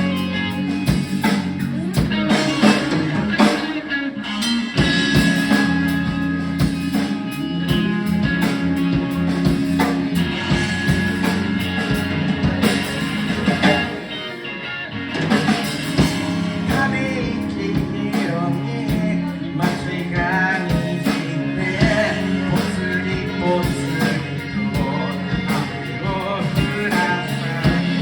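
A band playing a song live: a singer over guitar and drums.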